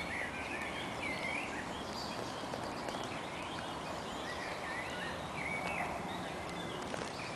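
Songbirds singing in the surrounding trees: many short chirps and warbled phrases over a steady background hiss.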